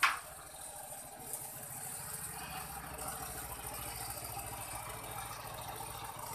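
Small motorcycle engine idling with an even low putter. A brief sound slides down in pitch right at the start.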